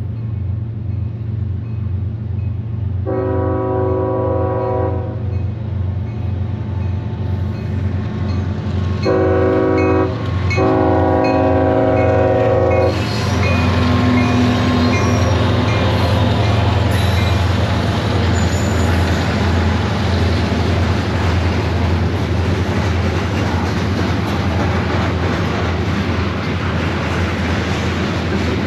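Diesel locomotive's air horn sounding three times, a long blast, then a short one and a long one, over the low pulsing drone of the engine. It is followed by the loud steady rumble and clatter of the train rolling past.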